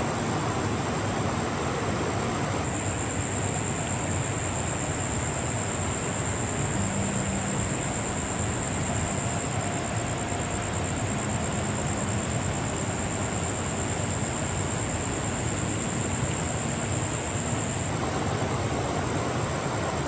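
Steady rush of a forest stream flowing over rocks, with a thin high-pitched steady tone over it that grows louder about three seconds in and drops back near the end.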